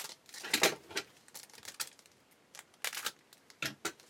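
A few separate sharp clicks and short rustles as a foil trading card pack is handled and opened.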